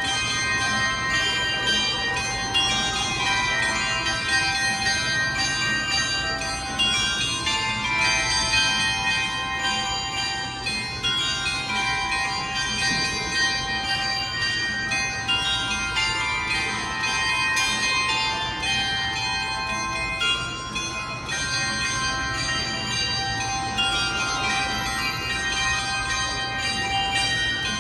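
Chime bells of a karakuri clock, ordered from the Netherlands, playing a melody: many bell tones struck in turn and ringing on over one another.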